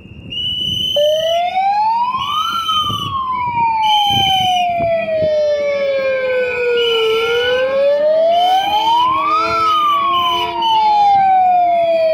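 A siren wailing, starting suddenly about a second in, rising and falling slowly twice. Short high beeps repeat over it every second or two.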